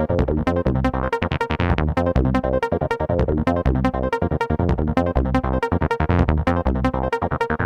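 Electronic dance music with a fast, steady beat and synthesizer chords.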